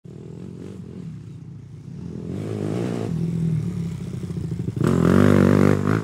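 Motorcycle engine running and revving, with a loud rise in revs about five seconds in.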